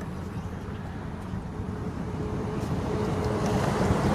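Steady low rumble of a vehicle, with a faint steady whine joining about halfway through and the sound growing a little louder toward the end.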